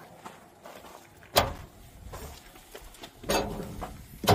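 Knocks and thumps of a person climbing the entry steps into a small travel trailer: a sharp knock about a second and a half in, a heavier thump with a low rumble a little after three seconds, and another sharp knock near the end.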